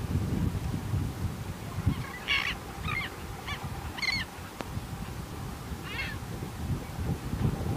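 Short, harsh calls from a resting flock of gulls and black skimmers: about five calls between two and six seconds in, over a low rumble of wind on the microphone.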